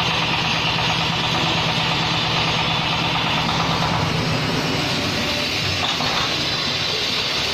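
Engine of a brick and concrete-block press machine running steadily with a fast, even throb that breaks up from about five seconds in.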